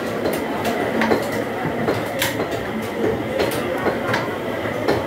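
Butchers' cleavers chopping goat meat on wooden log chopping blocks: sharp, irregular knocks, roughly one a second, over a steady background din.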